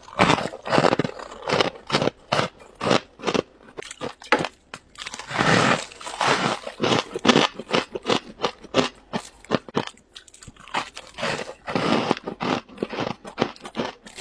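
Freezer frost being bitten and chewed close to a lapel microphone: quick, irregular crunching, with a few longer, louder runs of crunches.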